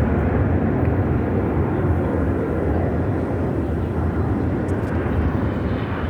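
Airplane engine noise from aircraft flying over, a steady rushing sound that neither rises nor falls.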